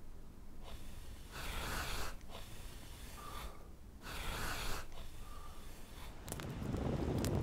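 A person breathing out hard twice, each long breathy exhale lasting about a second and a half. Near the end this gives way to a low rumble with sharp crackling clicks.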